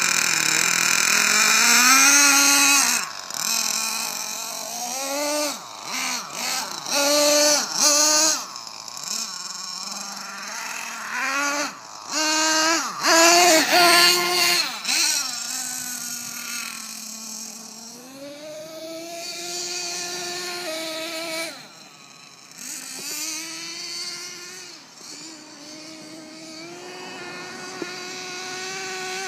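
Nitro engine of a Team Associated MGT 8.0 RC monster truck, revving in repeated surges with the throttle, its whine gliding up and down in pitch. In the second half it runs more steadily and sounds fainter as the truck gets farther off.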